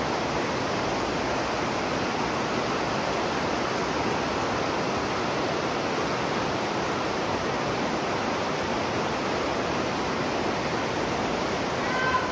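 Steady, even rushing noise with no rhythm in it, and a brief high-pitched tone near the end.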